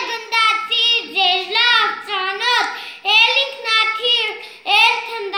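A young boy singing solo and unaccompanied, in short phrases with held, wavering notes.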